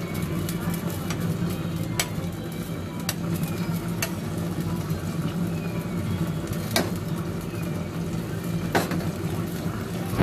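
Fish curry gravy simmering and sizzling in a steel pot while a metal spatula stirs it, with several sharp clicks of the spatula against the pot, over a steady low hum.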